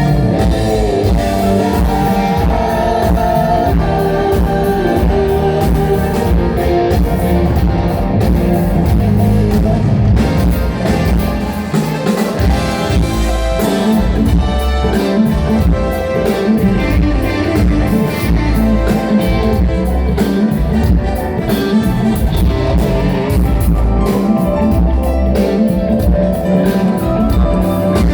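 Live rock band playing amplified at full volume: electric guitar over bass and drum kit.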